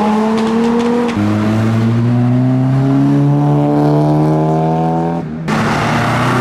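Sports car engines accelerating hard away from the roadside, one after another: a rising engine note, a sudden drop about a second in, then a long steady climb in revs over about four seconds. Near the end it breaks off abruptly into a different car's engine running at a steadier pitch.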